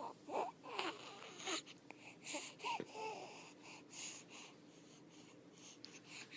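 Baby making small squeaky grunts for the first second and a half, with another near three seconds in, and short breathy snuffles in between.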